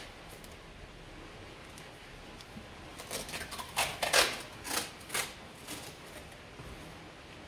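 Wooden hive box being handled: several short scrapes and clicks, bunched from about three seconds in, as the wooden lid is pressed and shifted into place on the box.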